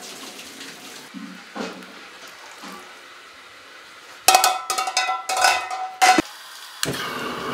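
Aluminium milk can knocking and clanking against a metal pot, several sharp ringing knocks about four seconds in, while milk is poured through a cloth strainer. A steadier noise follows near the end.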